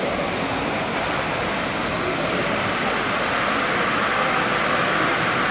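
Steady running noise of radio-controlled model trucks driving past, over the general hum of a busy exhibition hall, growing slightly louder toward the end.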